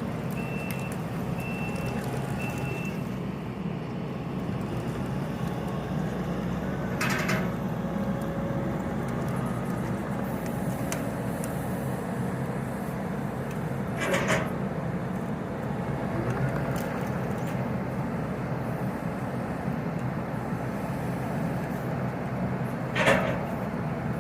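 Skid steer loader running steadily. Its reversing alarm beeps evenly, about every three-quarters of a second, and stops about three seconds in. A few short knocks come along the way.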